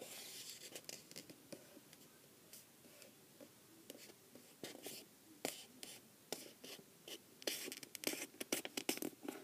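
Faint rubbing and scratching of fingers creasing a folded sheet of paper, in scattered short strokes that grow busier near the end.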